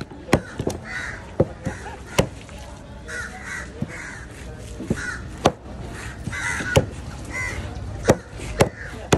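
A heavy cleaver chopping a spotted scat on a wooden board, about a dozen sharp, irregular knocks. Crows caw repeatedly in the background between the chops.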